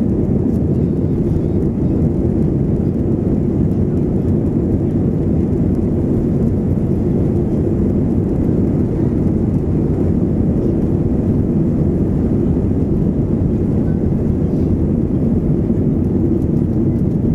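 Airbus A320 takeoff roll heard from inside the cabin: the jet engines at takeoff thrust and the rumble of the wheels on the runway make one steady, loud, low rumble.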